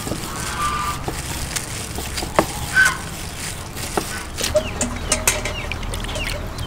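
A few sharp chops of a cleaver on a wooden cutting board, with chickens clucking and small birds chirping in quick falling notes through the second half.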